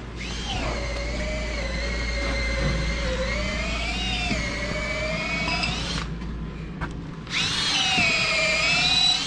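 Cordless drill running under load into a wooden post, its motor whine wavering in pitch. It runs for about six seconds, stops, then runs again for about two seconds near the end.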